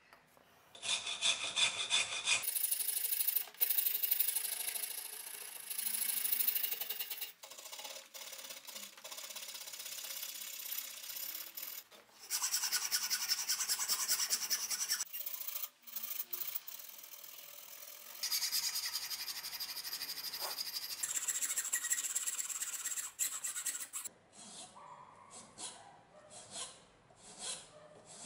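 Hand files rasping a chestnut-wood handle scale held in a vise: fast back-and-forth strokes, a round file, then a flat file, in several stretches, some harsher and louder than others. Over the last few seconds the strokes come slower and softer, one by one.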